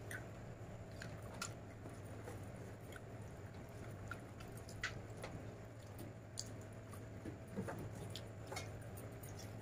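A person eating chicken curry and rice by hand: soft, close chewing with scattered small mouth clicks and smacks, over a steady low hum.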